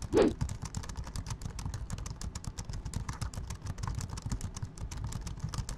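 Fast, continuous typing on a computer keyboard: a dense stream of key clicks. Just after the start, a short sound sweeps quickly downward in pitch.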